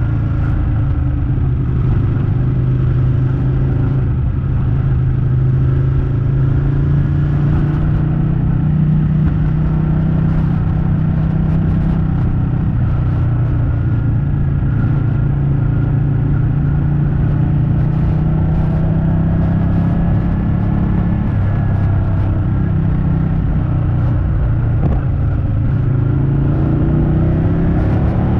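Ducati Panigale 899's Superquadro V-twin engine running steadily at cruising speed, its pitch drifting gently and rising near the end as the bike speeds up.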